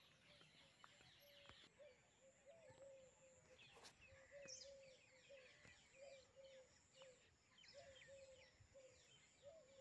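Faint birdsong: one bird repeating a short, low call about two or three times a second, with faint higher chirping from other birds behind it.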